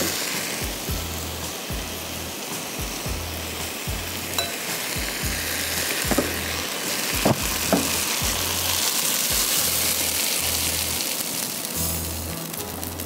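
Chicken pieces sizzling and frying in a deep pan while being stirred with a spatula, with a few sharp knocks of the spatula against the pan. Near the end the pan is tipped and scraped out.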